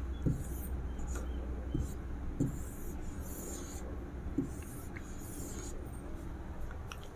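Faint, scratchy strokes of a felt-tip marker drawing lines on a white board, in several separate strokes with short gaps between them, over a low steady hum.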